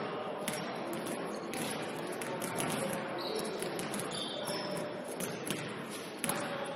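Basketball game play on an indoor court: a ball bouncing repeatedly on the floor among sharp knocks, with a few brief high squeaks and a steady background of voices.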